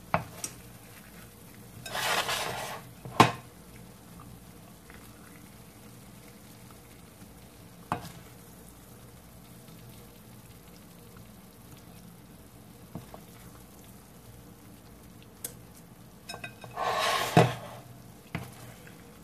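Wooden spoon scooping rice-and-ground-beef filling out of a frying pan and into bell peppers: two short scraping scoops, about two seconds in and near the end, with a few sharp knocks of the spoon against the cookware, the loudest about three seconds in.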